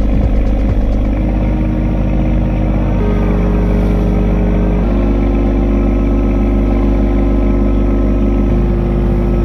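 Fishing boat's engine running steadily under load, with a heavy low drone. Sustained tones over it shift to a new pitch every couple of seconds.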